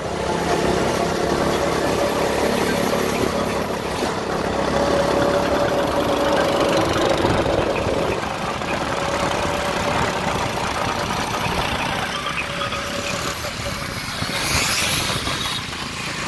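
Small motorbike engines running while riding along a road, with wind buffeting the microphone. A brief hiss comes near the end.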